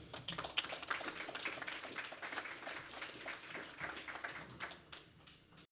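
Audience applauding: dense, irregular clapping that thins out near the end and cuts off suddenly.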